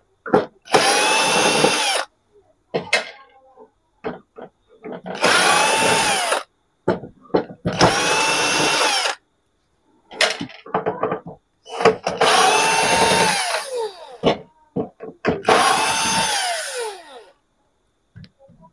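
Electric screwdriver backing out the screws of a TV's plastic back cover, in five short runs, each ending in a falling whine as the motor stops. Short clicks and knocks come between the runs as the screws are handled.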